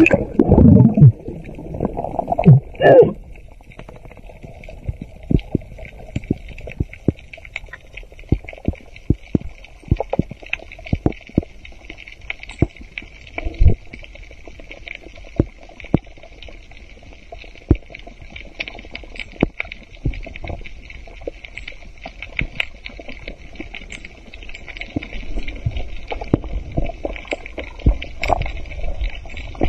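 Underwater sound during a free-dive over a coral reef: a loud bubbling gurgle in the first three seconds, then scattered sharp clicks and crackles over a steady hiss.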